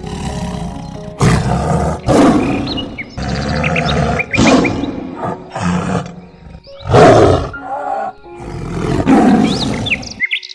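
A big cat roaring and growling repeatedly, about seven loud calls, the loudest about seven seconds in, over background music.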